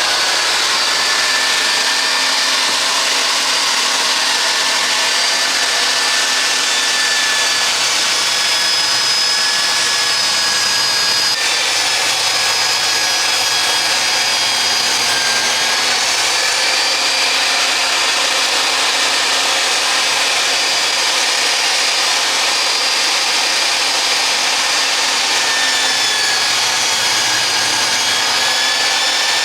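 Electric power saw running continuously under load while ripping timber into narrow strips, its motor pitch wavering slightly as the wood feeds through.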